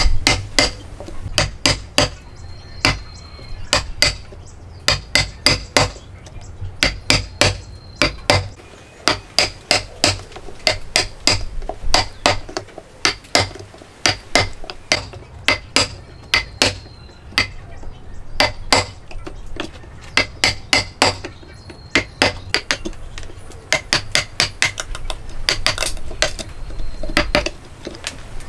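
Wooden mallet striking a steel chisel as it chops into a hardwood block to cut a joint. A steady run of sharp knocks, about two to three a second, comes in bursts with brief pauses between them.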